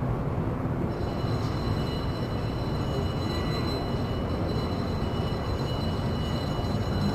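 Train running with a steady low rumble, a faint high-pitched whine joining about a second in.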